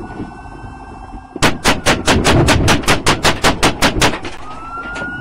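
Police officer's gun firing fourteen shots in rapid succession over about two and a half seconds, picked up by the patrol car's dashboard camera.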